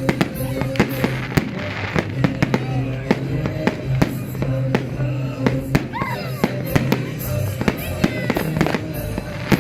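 Many fireworks and firecrackers going off in quick, irregular succession, over music playing.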